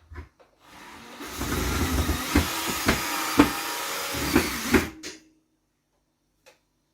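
Power drill running for about four seconds, driving a screw into the ceiling to fix a metal pot rack, with a few sharp knocks along the way. It starts softly, picks up about a second in, and stops suddenly about five seconds in.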